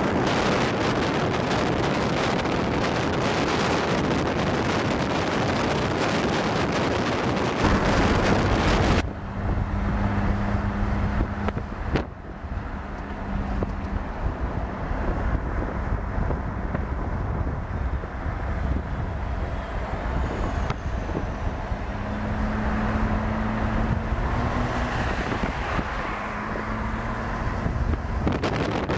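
Rushing noise of riding in a moving vehicle, with wind buffeting the microphone. About nine seconds in it changes abruptly to a quieter low rumble of a vehicle in motion, with a faint steady low hum.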